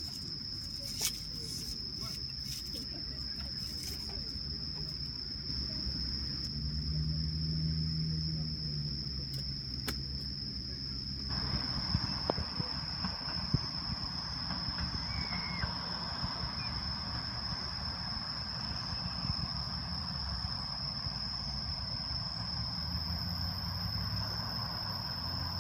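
Insects, crickets or similar, chirping in a steady high-pitched chorus over a low background rumble, with a few faint clicks.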